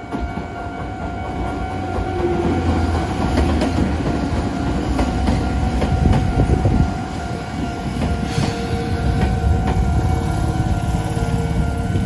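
Chichibu Railway electric train passing through a level crossing close by: a heavy rumble that builds to its loudest about six seconds in, with wheels clicking over rail joints. The crossing alarm keeps sounding a steady tone throughout.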